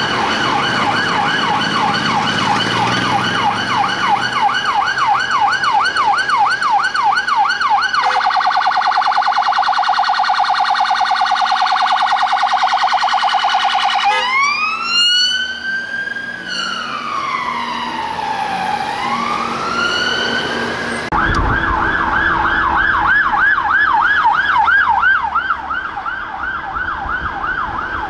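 Police car's electronic siren switching through its tones: a fast yelp, then a rapid warble about eight seconds in, then a slow rising and falling wail. After a sudden cut, another police vehicle's siren yelps fast, with traffic noise underneath.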